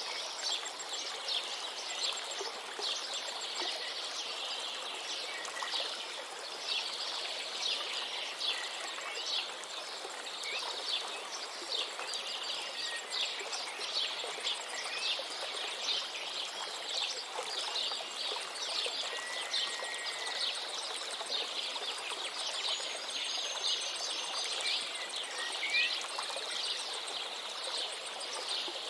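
A river running steadily, with many small birds chirping in quick, high notes over it throughout.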